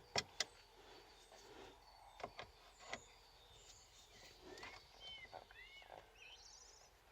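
Faint clicks and knocks of hands working a stuck ignition switch loose, sharpest in the first three seconds. A few short bird chirps and a brief trill in the background later on.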